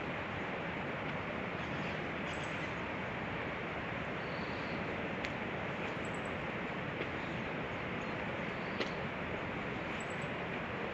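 Steady outdoor background noise, an even rushing hiss, with a few faint short ticks and brief high chirps.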